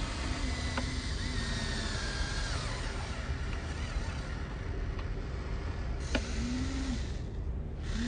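Small electric motors and plastic gearboxes of radio-controlled construction toys whining in short runs, pitch rising and falling as they start and stop, with a few sharp clicks over a low steady rumble.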